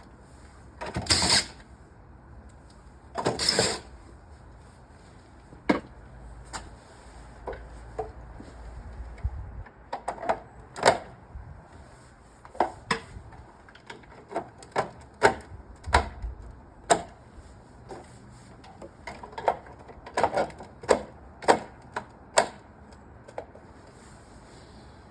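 Sharp, irregular plastic clicks and knocks as modular recycled-plastic living-wall pods are clipped into place, after two short noisy bursts near the start.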